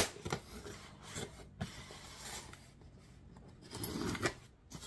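Blade slitting the packing tape on a cardboard shipping box, with scraping and rubbing against the cardboard. A sharp click at the very start, and a louder scuffle of hands on the cardboard about four seconds in.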